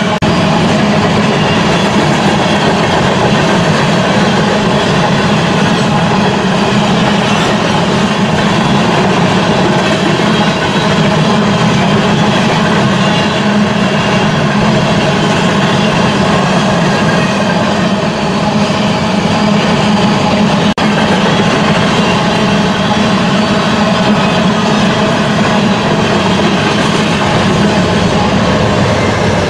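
A BNSF freight train rolling past, with a steady, loud rumble and clatter of its cars' wheels on the rails.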